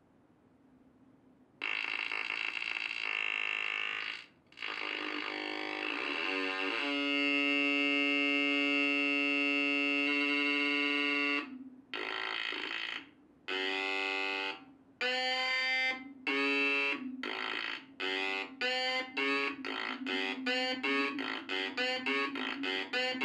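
Cyclotone's four 555-timer Atari Punk Console synths, switched in turn by brushes on its spinning rotor: buzzy square-wave tones start about a second and a half in, hold one pitch for a few seconds in the middle, then break into short stepped notes that come faster and faster as the rotor speeds up.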